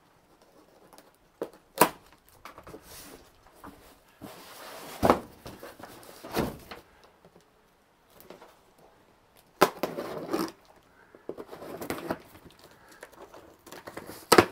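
Cardboard shipping boxes being unpacked: a sharp snap about two seconds in as the plastic packing strap is cut, then scraping and rustling of cardboard and packing tape, with a few knocks.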